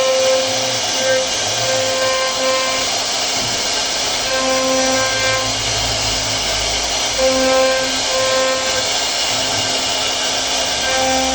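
CNC router spindle cutting wood, a steady whirring hiss, with background music playing over it in held notes that come and go.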